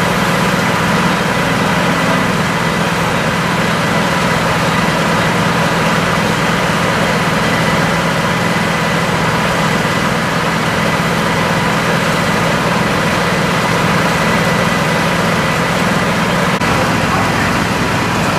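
Fire engine's diesel engine running steadily at idle.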